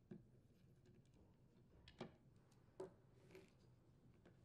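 Near silence with four faint, short clicks and taps, from a screwdriver and small screws being handled and set down around the plastic oil-tank housing of a pole pruner head.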